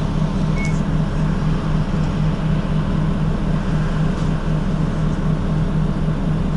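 Inside a Nishitetsu city bus: the engine's steady low hum with a regular pulsing, over an even cabin rumble. A short faint beep sounds about half a second in.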